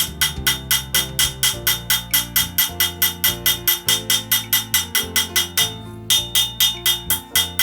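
Rapid hand-hammer blows on an anvil, about five a second, each with a bright metallic ring, as the hot steel latch-handle blank is forged out. There is a short pause just before six seconds. Background music with a bass line plays underneath.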